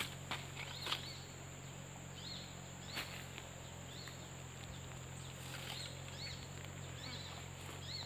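Rural outdoor ambience: a steady insect drone, short rise-and-fall chirps repeating every second or so, and a few sharp clicks in the first few seconds.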